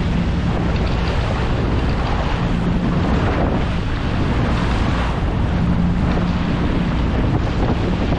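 Steady wind buffeting the microphone on an open boat at sea, a dense rushing noise, with a faint low steady hum underneath that swells now and then.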